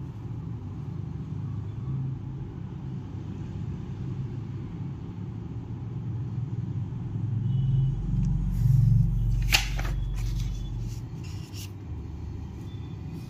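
Low background rumble that swells for a few seconds past the middle, with a few sharp clicks about two-thirds of the way in.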